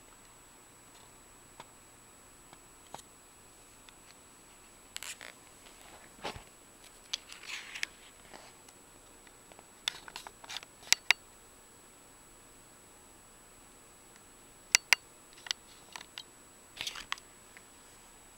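A graphic novel handled close to the microphone: scattered sharp clicks, taps and short rustles of paper and cover, in a few clusters. A faint steady high-pitched tone runs underneath.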